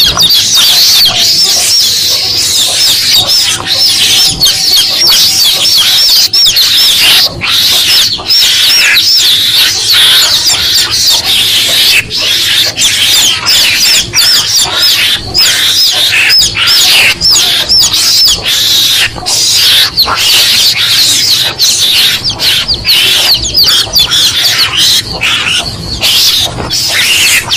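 Chicks (anak ayam) peeping rapidly and without pause at a high pitch: a hunting lure recording used to call in mongooses.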